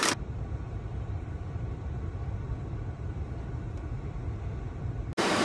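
A low, steady vehicle rumble that cuts off suddenly near the end.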